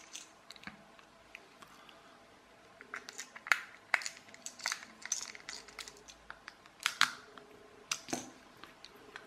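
Small screws being driven into a plastic toy gearbox housing with a precision screwdriver. Scattered light clicks and scrapes of the screwdriver, screws and plastic parts begin about three seconds in.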